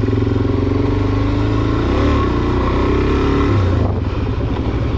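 Suzuki DR-Z400SM's single-cylinder four-stroke engine running while the bike rides along, heard from the handlebars. The engine note wavers up and down about two seconds in, then drops just before four seconds.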